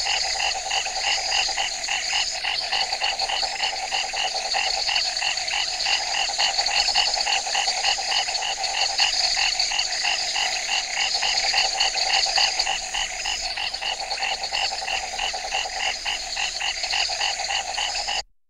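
Night forest ambience: a chorus of frogs calling in rapid, evenly repeated pulses over a steady high-pitched drone. The whole recording cuts off suddenly near the end.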